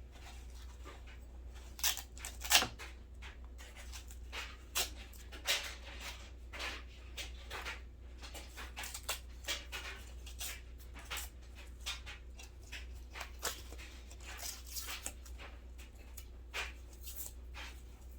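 Irregular short clicks, taps and scrapes from small metal and plastic intercom parts being handled and picked clean, the sharpest knock a little over two seconds in, over a steady low electrical hum.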